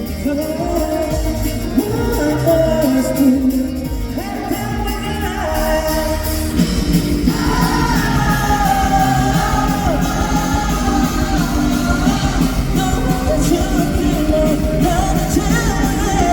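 Live pop-rock band performance with lead vocals singing over drums, bass and guitars, heard in a large hall; the band fills out and gets louder about seven seconds in.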